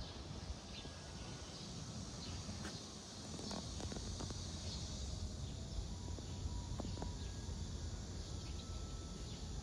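Outdoor summer ambience: a steady high-pitched insect buzz, with a low rumble underneath and a few faint short chirps and ticks.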